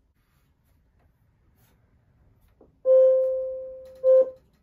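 Rhythm 'Magic Music Box' clock suddenly sounding two loud chime tones at the same pitch: the first rings out and dies away over about a second, the second, a second later, is cut short.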